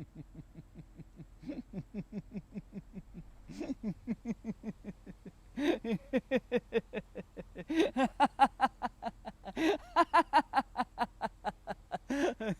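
A man laughing on purpose in a steady chain of short 'ha' pulses, about four a second, broken by a sharp breath in every two seconds or so. The laughter starts soft and low, through pursed lips, and grows louder and brighter as the mouth widens into a smile, loudest in the second half.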